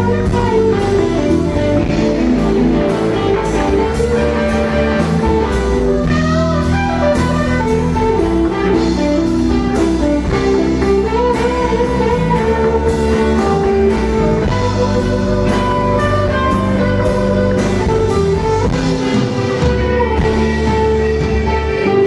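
Live blues-rock band playing: a Stratocaster-style electric guitar leads with bending, sustained notes over bass and drums with a steady cymbal beat.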